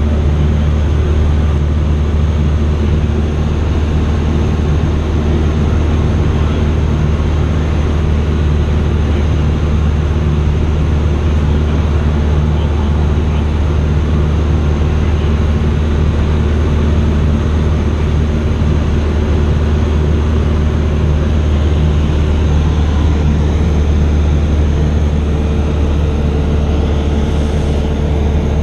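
Cessna 172's engine and propeller running steadily in flight, a constant low drone heard inside the cabin.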